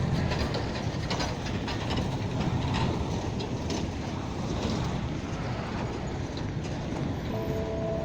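Steady rumbling vehicle noise with scattered clicks and knocks.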